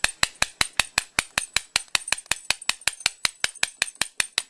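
Brockhage bump hammer tapping the head of a universal bump key in a Sabre pin-tumbler lock, quick even strikes at about six a second that stop just before the end. It is lock bumping: each strike jars the pins, trying to knock them to the shear line so the cylinder will turn.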